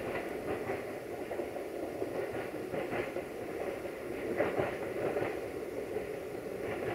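Passenger diesel multiple unit running past, its engine and rolling noise steady, with short clicks coming at uneven intervals, often in pairs, as the wheels cross rail joints.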